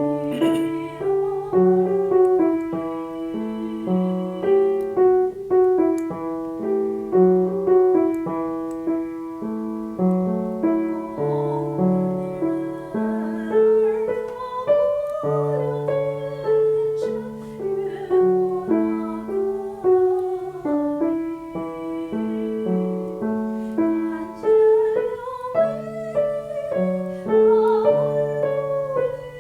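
A piano playing a steady accompaniment of chords and bass notes, with a woman's voice singing a melody over it with vibrato.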